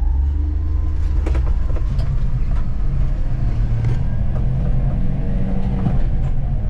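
Honda Acty kei truck's small three-cylinder engine pulling in first gear, heard from inside the cab with road noise and light rattles. The engine note climbs about halfway through.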